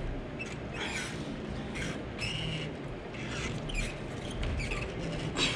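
Gymnastic rings and their straps squeaking and creaking in short scattered bursts under a person's body weight as he pulls up and swings over, over a steady background hum.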